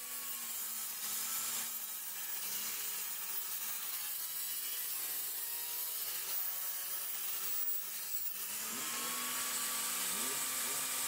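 Benchtop table saw running and ripping an angled cut through a plywood panel. The motor's note sags under the load of the cut and picks back up about eight seconds in as the blade runs free.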